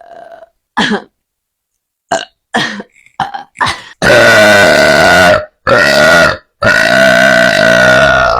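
A young woman burping: about five short burps, then three long, very loud belches one after another from about four seconds in, the last lasting around two seconds.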